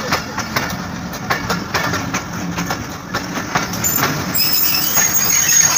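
Passenger train coaches rolling past on arrival, the wheels clicking in quick succession over the rail joints. A high squeal comes in about four seconds in as the train slows to a stop.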